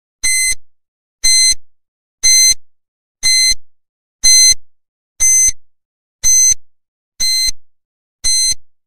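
Countdown timer sound effect giving nine short, high electronic beeps, one a second, ticking off the seconds of a ten-second countdown.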